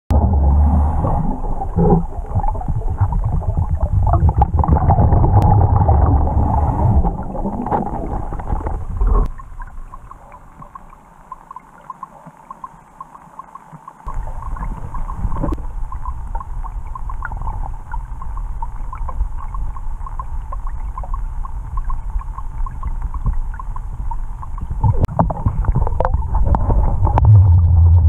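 Underwater sound of a scuba diver's regulator breathing, with bubbling and small clicks. It is loud for about the first nine seconds, drops much quieter for about five seconds, then comes back and swells again near the end.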